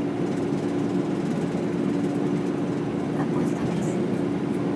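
Steady drone of a bus cabin in motion: engine and road noise with a constant low hum.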